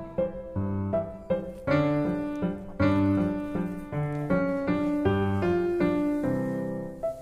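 Background piano music: single melody notes struck over low bass notes, each note fading after it is played.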